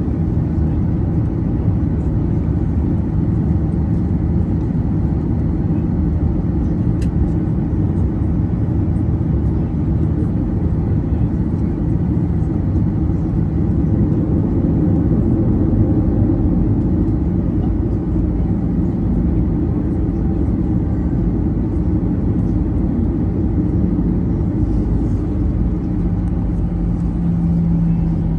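Cabin noise of a Boeing 737-800 taxiing: the steady low rumble of its CFM56-7B engines at taxi power, heard from inside the cabin, with a steady hum that grows louder near the end.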